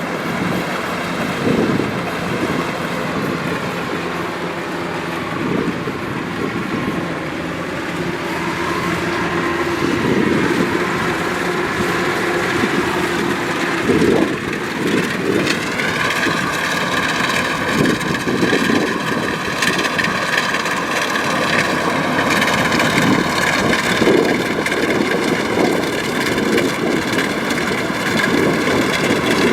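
Kubota DC-105X combine harvester running steadily while harvesting, with a low, uneven rumble. About halfway through, a steady high whine comes in and stays.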